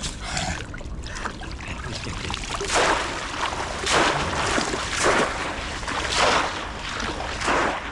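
Water splashing in a steady rhythm: five heavy splashes about a second apart, starting around three seconds in, after a quieter stretch of sloshing.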